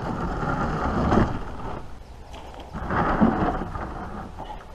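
Plastic kayak hull scraping and grinding over the stony, muddy bank as it is pushed into the lake, in two long scrapes.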